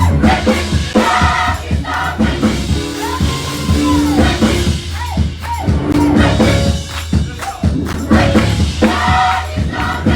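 Gospel-style music: voices singing over a band with a steady bass and percussion.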